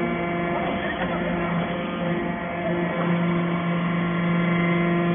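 Hydraulic power unit of a vertical scrap baler running with a steady hum, growing a little louder about a second and a half in and again about three seconds in.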